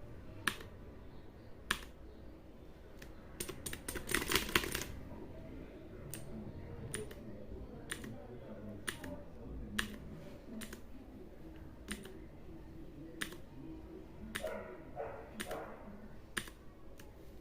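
Mechanical keyboard keys pressed one at a time, sharp clicks about every second or so, with a quick flurry of several presses about four seconds in. The presses switch the keyboard's RGB lighting modes.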